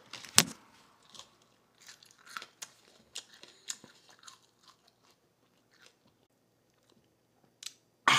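A person chewing a raw spicy pepper with the mouth closed: a sharp crunching bite about half a second in, then scattered softer crunches that thin out and stop. Right at the end comes a sudden, loud breathy exhale through an open mouth.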